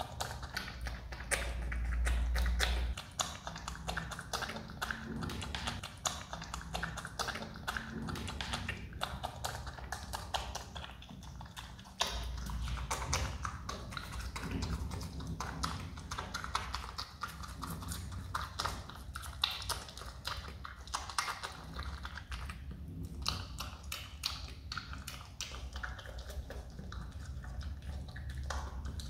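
Himalayan marmot chewing tangerine segments, making a fast, continuous run of small clicking and smacking chews. A low rumble comes in about a second in and again about halfway through.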